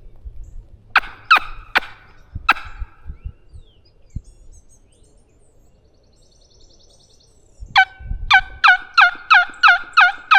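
Turkey yelping: a few loud single yelps about a second in, then a steady run of about nine evenly spaced yelps near the end, each note dropping in pitch.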